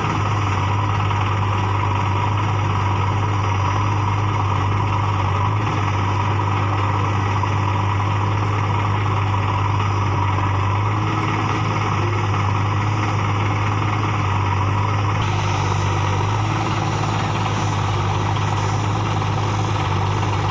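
Diesel engines of a Sonalika tractor and a JCB 3DX backhoe loader running steadily at idle, a constant low hum.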